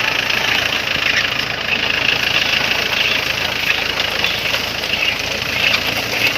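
Tractor engine running steadily while a potato harvester works.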